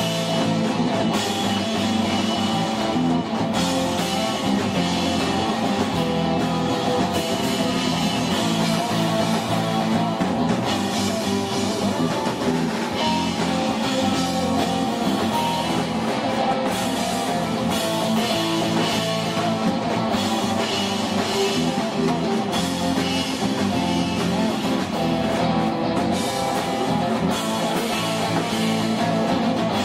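Live rock band playing: sustained electric guitar over a drum kit with a constant wash of cymbals.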